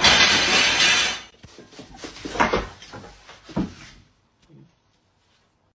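A pile of long white slats crashes and clatters on a wooden floor as a cat scrambles through them. A loud crash comes first, then scattered rattling with a couple of sharper knocks, dying away a little after the middle.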